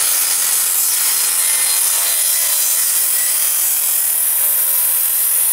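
Corded portable circular saw running and cutting across a 2x4 of framing lumber, a steady loud whine of the blade through the wood.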